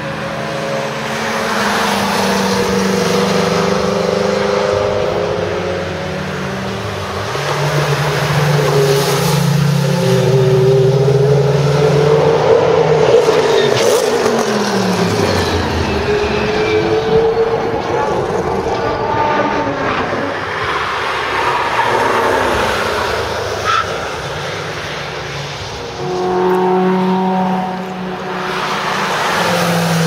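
Mercedes race cars on a circuit, one after another: a W126 S-Class coupé's V8 and a Group C prototype's engine, running hard and changing pitch as they shift and pass. The loudest moment is a pass-by whose pitch falls, about 12 to 16 seconds in.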